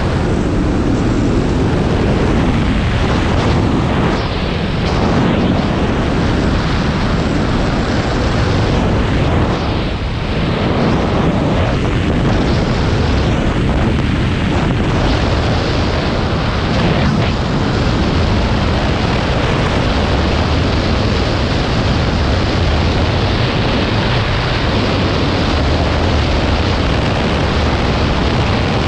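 Loud, steady wind noise buffeting the camera's microphone from air rushing past in fast, low flight, with no engine sound.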